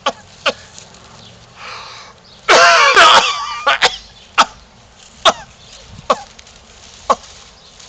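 A loud, harsh hacking cough about two and a half seconds in, lasting under a second, with sharp short clicks about every second around it.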